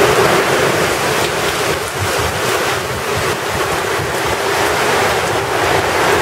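Heavy tropical-storm rain pouring down in strong wind, a loud dense hiss that swells slightly with the gusts.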